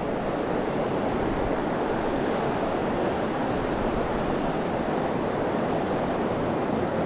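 A river's flowing water making a steady rush.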